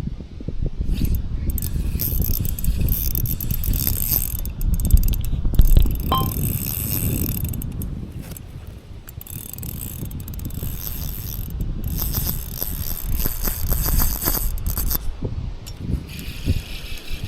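Spinning reel being worked, a high ratcheting whirr that runs in spells and stops about fifteen seconds in, over wind rumbling on the microphone.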